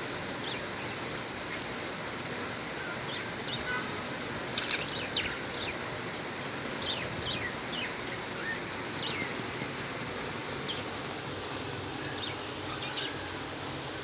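Budgerigars chirping: scattered short, high chirps, some falling in pitch, over a steady background hiss.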